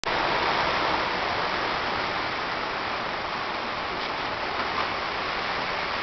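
Strong wind rushing steadily, an even hiss with slight swells in strength.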